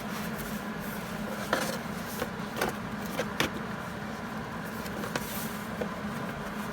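A steady mechanical hum with a few sharp clicks and taps, about one every second, in the first half.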